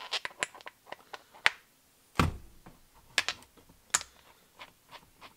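Scattered clicks and taps of handling a cordless drill and fitting a foam polishing pad's shank into its chuck, with one heavier thump about two seconds in.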